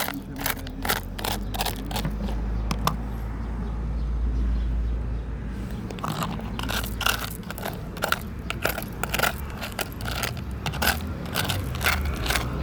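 Loose stones and gravel crunching and clicking in quick, irregular strikes. A low rumble runs under the first half and fades about six seconds in.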